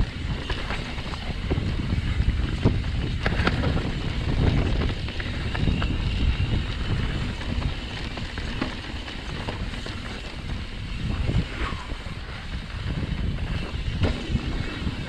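Wind buffeting the microphone during a fast mountain bike descent on rocky dirt singletrack, with the rumble of the tyres and scattered rattles and knocks as the bike goes over rocks.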